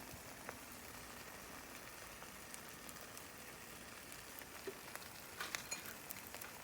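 Omelette eggs frying in a pan, a faint, steady sizzle with small crackles. A few louder clicks come about five and a half seconds in.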